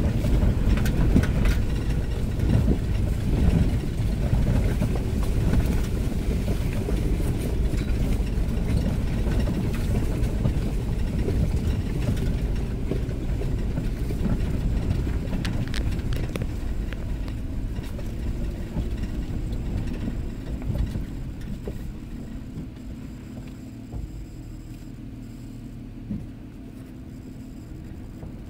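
Low rumble of a 2013 Toyota 4Runner SR5 heard from inside the cabin as it crawls along a dirt trail: engine drone and tyres rolling over dirt and rock, with scattered knocks. It quiets to a steadier low hum in the last several seconds.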